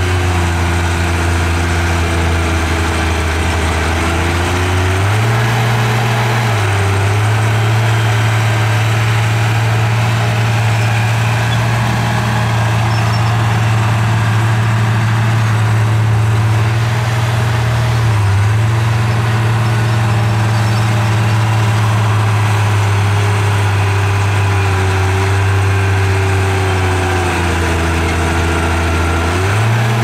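Komatsu bulldozer's diesel engine running steadily, its engine speed rising about five seconds in, dipping briefly midway, and dropping then picking up again near the end as the dozer works dirt.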